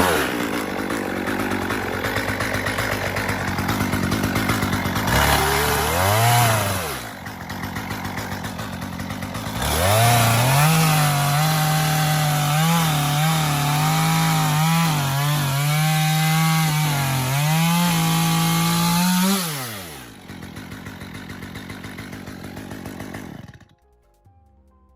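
Chainsaw cutting into a Nike Air Vapormax sneaker. The saw revs up and down, runs at a steady high pitch for about ten seconds, then winds down and stops near the end.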